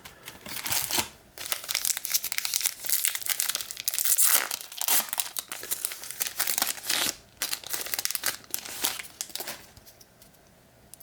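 A trading-card pack's foil wrapper being torn open and crinkled by hand, a run of crackly rustles that stops shortly before the end.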